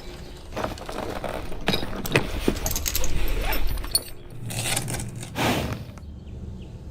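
Barrel racing horse's hooves striking the arena dirt, irregular knocks with metal tack jingling.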